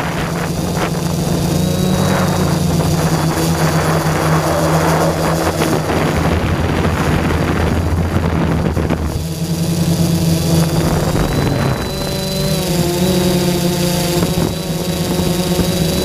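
Quadcopter drone's electric motors and propellers running with a steady buzzing hum, recorded from the GoPro on the drone itself. The pitch steps a couple of times as the motors change speed, and a rushing noise swells in the middle and drops away about nine seconds in.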